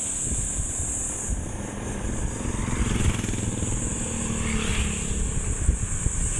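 Motorcycle running steadily at riding speed, heard from the rider's seat as a dense low rumble.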